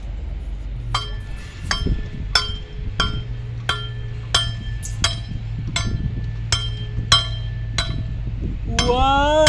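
Sharp metallic clinks, each ringing briefly, struck about a dozen times at an even pace of roughly three every two seconds. Near the end a held, sliding musical tone like singing begins.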